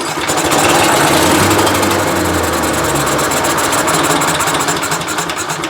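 18 hp Briggs & Stratton Vanguard twin-cylinder engine firing and running on starter fluid sprayed into the carburetor throat. It runs on the fluid, a sign that the no-start comes from a gummed-up carburetor after long storage.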